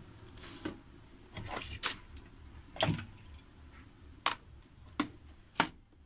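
Scattered clicks and knocks of tools and power-tool parts being handled on a workbench, about six sharp taps at uneven intervals.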